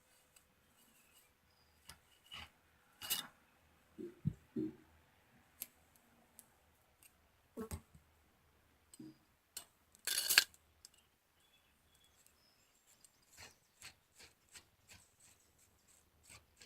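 Scattered clicks and knocks of a rifle bolt and a bolt disassembly tool being handled on a bench, with the loudest clatter about ten seconds in and a run of small quick clicks near the end.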